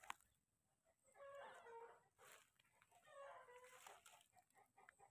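Faint chicken calls: short pitched notes in two bouts, about a second in and again near four seconds, after one sharp click at the start.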